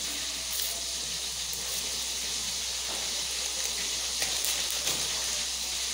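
Steady hiss of food cooking on the stove, with a few faint clicks.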